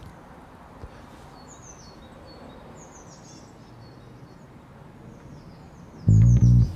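Outdoor ambience: a steady background hush with birds chirping every so often. About six seconds in, loud low bass-guitar music comes in.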